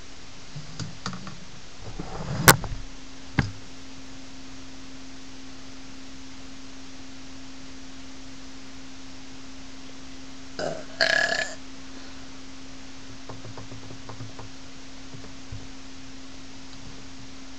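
A boy burping, with the clearest burp about ten seconds in. A sharp click comes a couple of seconds in, and after it a steady low electronic tone holds on.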